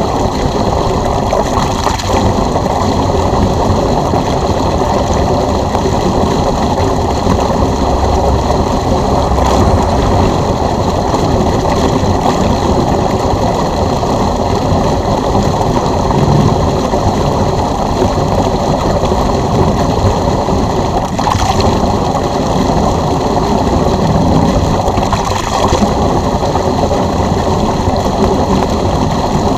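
Electric pool pump running steadily while draining a pool, with water rushing through the drain hose.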